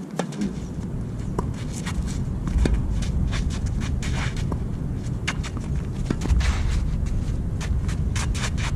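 Tennis player's shoes stepping and scuffing on the court surface, a run of short sharp clicks and scrapes, over a steady low rumble that swells about two and a half seconds in and again about six seconds in.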